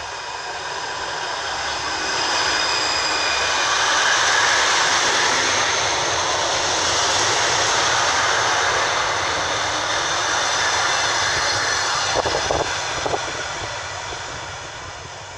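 EN61 electric multiple unit running past along the platform. Its running noise swells as it draws level and fades as it pulls away, with a faint whine as it approaches and a few sharp knocks near the end.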